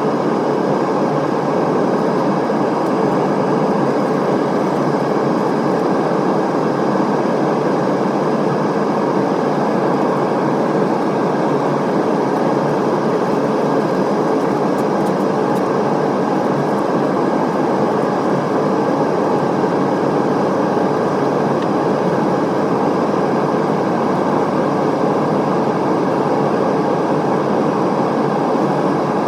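Steady in-flight cabin noise inside an Airbus A320neo during the descent: a constant rush of airflow and engine noise with no change in level.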